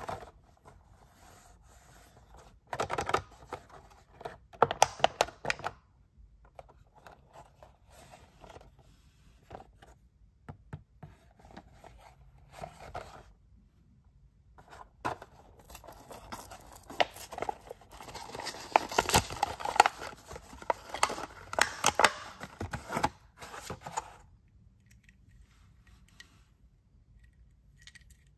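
A Hot Wheels blister pack being torn open by hand: the plastic blister and cardboard backing crackle and tear in scattered bursts, with a longer, busier stretch in the second half.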